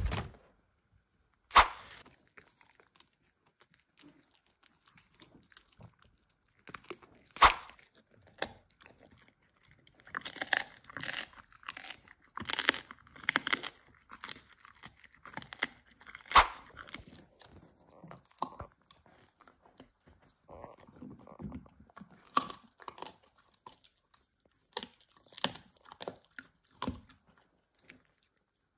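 Dogs chewing dried chicken feet: irregular loud crunches of bone and dried skin, with a dense run of rapid crunching near the middle and a few single sharp cracks.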